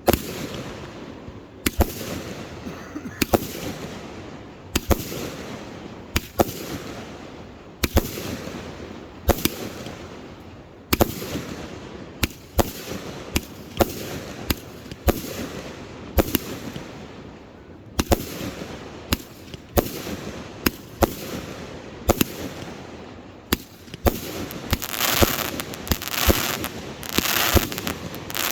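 Aerial fireworks shells bursting in a steady series of sharp bangs, about one every second and a half at first and coming faster from about halfway on, with a thicker hissing noise between the bangs in the last few seconds.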